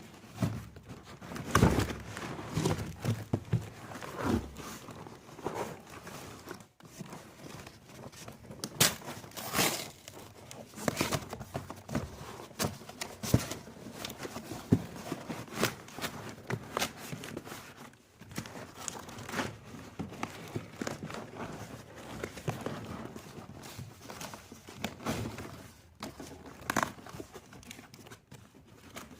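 Packing material being handled: irregular crinkling, rustling and tearing with scattered knocks.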